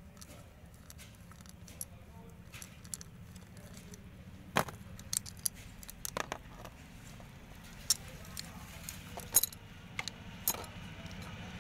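Small steel bolts and metal parts of an autorickshaw's LPG regulator clinking as they are handled and set down while the regulator is taken apart: a scattering of sharp separate clinks, mostly in the second half.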